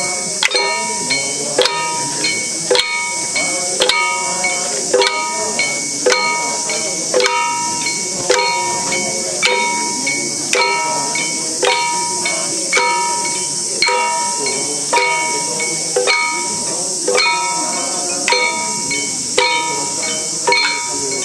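Hand-held metal gongs (kane) struck with mallets in a steady, even beat for a nenbutsu dance, each stroke ringing on. A steady high hiss runs underneath.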